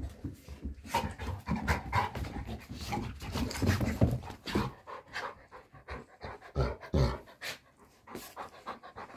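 Dog panting in quick, irregular bursts, busiest in the first few seconds and sparser after.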